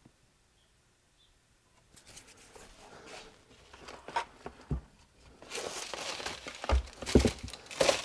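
Crinkling and rustling as parts are handled on a workbench, with three dull knocks from about halfway in, the loudest near the end, as the engine's crankcase cover is picked up.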